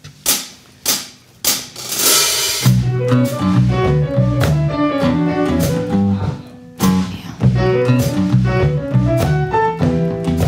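A live band starts a song: three sharp drum hits about half a second apart count it in, a cymbal crash follows about two seconds in, and then the full band comes in with drums, electric bass and guitar. The playing dips briefly about six and a half seconds in, then carries on.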